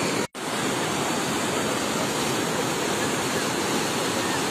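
Floodwater in a mountain stream rushing steadily as a torrent. The sound drops out briefly about a third of a second in.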